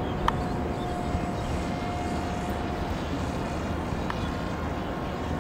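Art-tech Cootaa RC flying boat passing overhead, its motor and propeller giving a steady thin whine over a hissing background; the whine shifts higher near the end.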